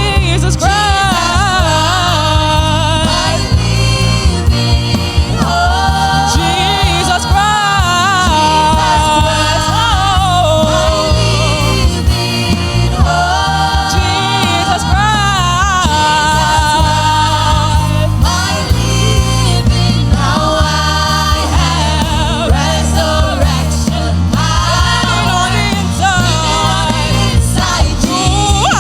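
Gospel worship song with several singers in harmony, voices held with vibrato, over a band accompaniment.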